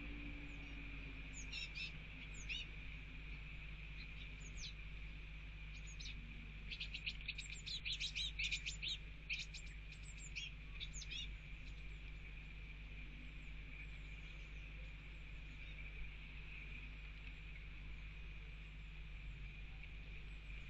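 Eurasian blue tit fledglings giving high, rapid begging chirps to a parent carrying food: a few short calls, then a dense run of chirps between about seven and eleven seconds in.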